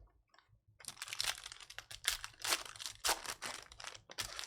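Trading card pack wrapper crinkling as it is handled and ripped open, a string of irregular rustling bursts starting about a second in.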